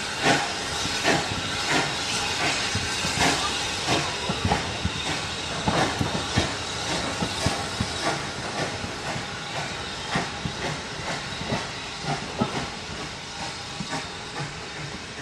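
Steam train moving past along a platform: a steady hiss of steam with regular beats, from the exhaust and from the coach wheels over the rail joints, easing off toward the end as the train draws away.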